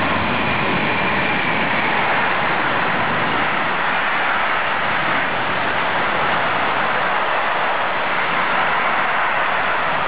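A container freight train passing close by behind an electric locomotive: the loco goes by at the start, then the wagons' wheels run over the rails in a loud, steady, even noise.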